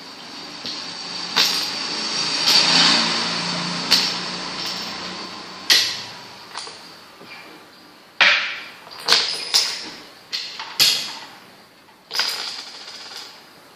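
A run of sharp knocks, more and faster in the second half, from play at a makruk board: pieces set down and struck during a fast exchange of moves. A wash of noise swells and fades in the first few seconds.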